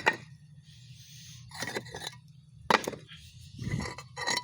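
A few sharp clinks and knocks of broken paver pieces being handled and knocked together, with a brief scrape about a second in and a dull thump near the end.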